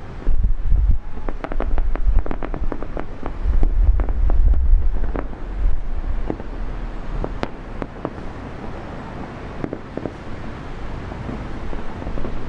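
Aerial fireworks going off: a rapid run of sharp cracks and pops starting about a second in, thinning to scattered single bangs after the middle, with wind rumbling on the microphone.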